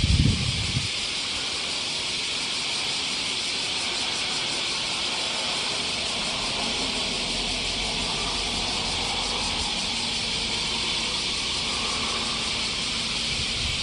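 Steady high-pitched drone of summer insects, with a brief low thump at the very start.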